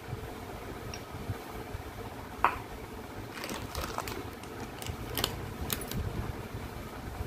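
Steady low background hum with a few small, sharp clicks and taps: one louder click about two and a half seconds in, then a loose run of lighter ticks over the next few seconds.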